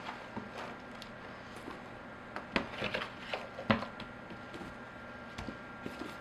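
Sawdust being scooped and poured into a container: scattered rustles and light clicks, busiest in the middle, with one sharper knock.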